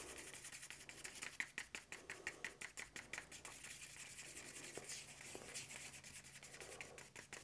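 Faint, quick scraping and tapping of a stir stick against the inside of a small cup, several strokes a second, as thick acrylic paint is mixed into pouring medium.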